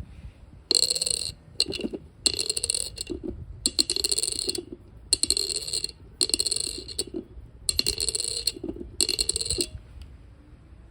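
A penny dropped onto a hard surface seven times in a row, each drop rattling and ringing with a bright, high ping for just under a second. The test listens for this ping, which a brass penny gives and which is duller in copper.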